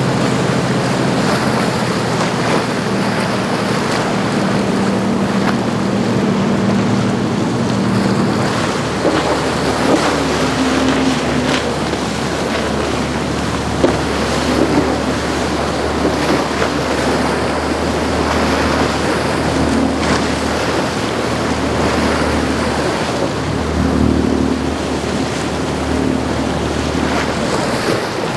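Large motor yachts running past at speed. The Azimut 84's engines drone with a layered hum, and about eight seconds in the Sunseeker 82 takes over with a deeper drone. Under both run the rush of wake water and wind on the microphone.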